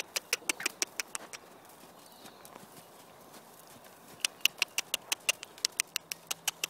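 Hoofbeats of a Standardbred horse at the trot, quick regular clicks at about six a second. They fade out for a few seconds midway and then come back.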